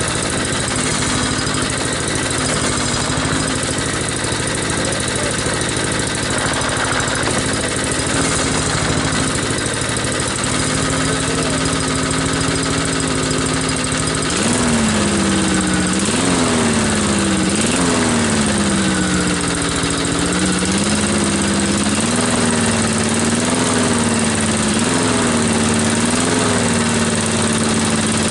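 Predator 173cc single-cylinder lawn mower engine running at a steady speed, then about halfway through it revs up and its speed rises and sags again several times.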